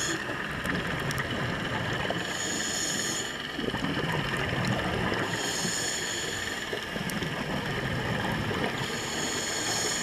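A scuba regulator breathing underwater: a hissing inhalation about every three seconds, three times, with bubbling exhalations in between, over a steady underwater hum.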